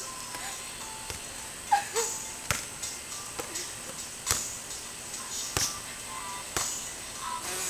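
Hands slapping a rubber tetherball, about half a dozen sharp smacks at uneven intervals, over background music.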